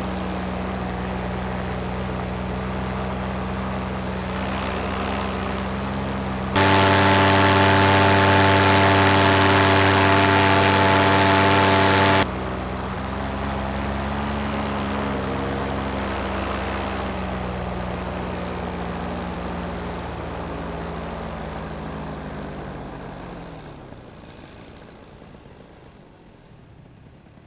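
Powered paraglider engine and propeller running steadily in flight. For about six seconds in the middle the engine is much louder with a deeper tone. In the last several seconds its pitch slides down and the sound fades, as when the throttle is eased back.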